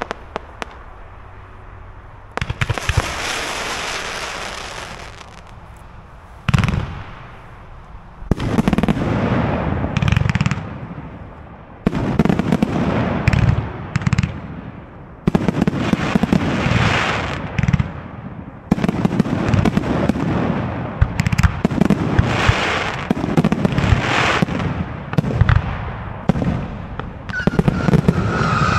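Fireworks display: aerial shells bursting with sharp bangs, each followed by a spell of hissing and crackling, one volley after another. A steady high whistle sets in near the end.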